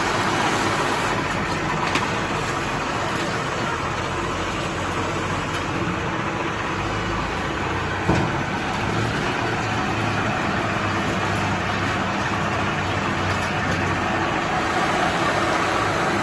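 Banana stem cutting machine running steadily, with a sharp knock about two seconds in and a louder one about eight seconds in.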